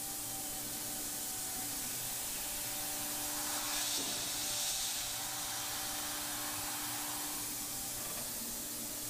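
Thermwood 5-axis CNC router running with a steady hum and hiss while its spindle cuts angled holes in a polyethylene part. The hiss of the cutter grows brighter and louder about three and a half seconds in, then eases about five seconds in.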